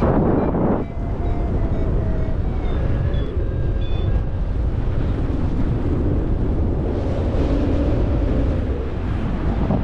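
Wind rushing over the microphone of a paraglider in flight: a steady low rumble, louder and brighter in the first second.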